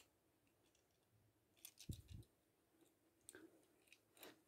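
Near silence with a few faint clicks and a light knock as a small toy car is handled against a plastic loop track.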